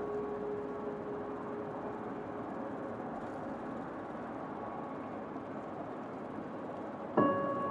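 Piano music in a quiet stretch: a held note dies away at the start over a steady rushing noise, and a new piano chord comes in near the end.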